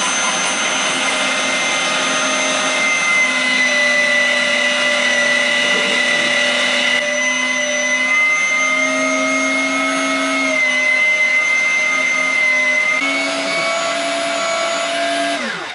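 Electric meat grinder running steadily as raw chicken is fed through it, a whine that shifts slightly in pitch as the load changes. At the very end it winds down with a falling pitch and stops.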